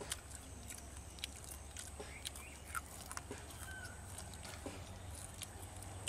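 Faint outdoor ambience: scattered small clicks and ticks, a few short bird chirps, and a low steady rumble underneath.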